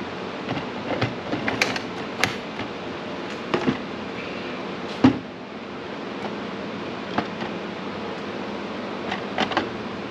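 Handling noise of a Greenworks Pro 60V cordless chainsaw: scattered plastic clicks and knocks as its battery pack is taken out and the saw is set down on a bathroom scale, with the sharpest knock about five seconds in. A steady low hum runs underneath.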